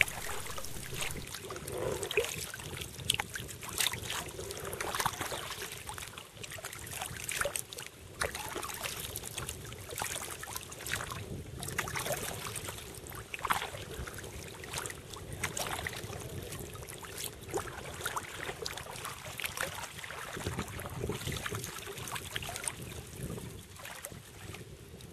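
Kayak paddle strokes: the blade dipping and pulling through the water, with irregular splashes and trickling drips.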